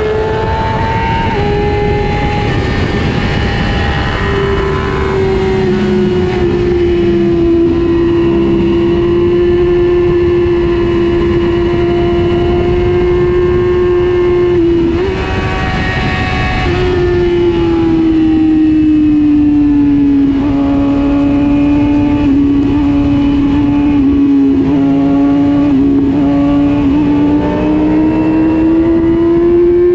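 A racing motorcycle's engine running hard at high revs, heard from on the bike over heavy wind rush. Its pitch breaks off briefly about halfway through, sags lower over the following seconds as the bike slows, then climbs again near the end as it accelerates.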